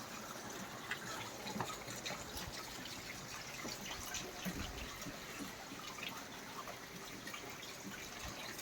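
Rain falling, with scattered drips and splashes over a steady wash of running water from a gushing pipe.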